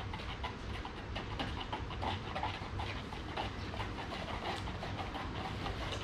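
Stirring sticks scraping and clicking against the sides of plastic mixing cups as West System 105 epoxy resin is stirred, a quick irregular patter of small clicks.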